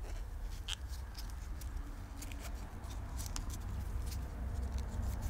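Faint scattered clicks and rustles of PTFE tape being wrapped by hand around the threads of a Bing carburettor part, over a low steady hum.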